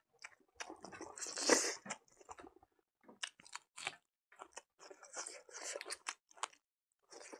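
A person chewing mouthfuls of rice cooked with pig blood, with pork and pork fat, in a run of short wet clicks and crunches, loudest about a second and a half in.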